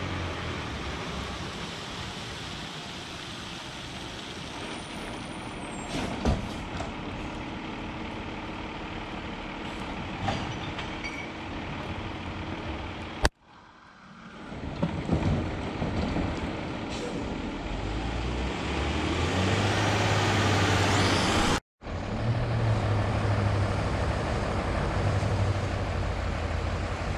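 Trucks on a wet road. A steady hiss of wet pavement and distant traffic gives way, after a sudden break, to a truck engine drawing closer, its hum and tyre hiss growing louder. After a second sudden break a truck's engine runs close by.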